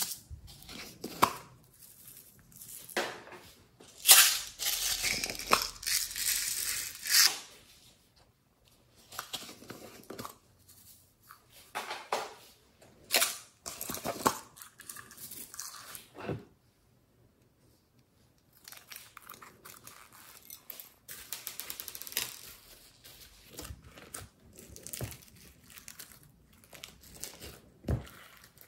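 Plastic slime tubs being handled and opened, with crinkling and tearing noise that is densest a few seconds in, followed by irregular sticky clicks. Near the end, slime is being spread and pressed in a glass dish.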